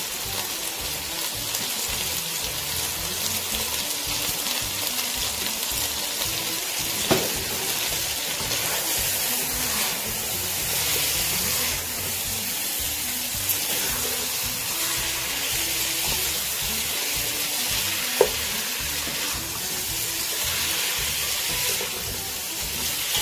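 Chicken pieces sizzling as they fry in hot oil with whole spices and green chillies, stirred around the pan. There are two sharp knocks of the stirring utensil against the pan, about seven seconds in and again about eighteen seconds in.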